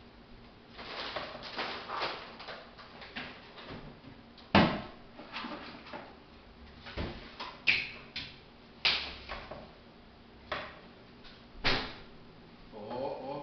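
Kitchen clatter: things handled and knocked against the counter and a wall cupboard opened and rummaged in, giving a run of separate sharp knocks. The loudest knock comes about four and a half seconds in.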